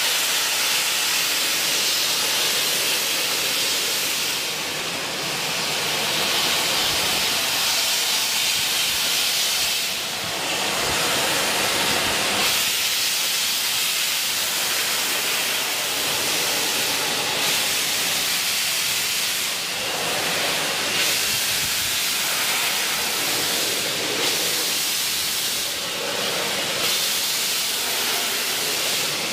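Steam hissing steadily from the LNER A3 Pacific locomotive Flying Scotsman, with a few brief dips in loudness.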